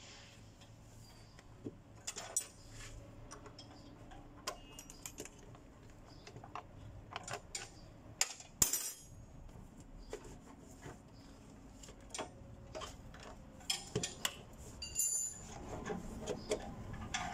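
Scattered clicks, knocks and light metallic clinks of a forklift's air cleaner housing being handled, unclipped and worked loose, with one sharp click about halfway through and a busier run of clatter near the end.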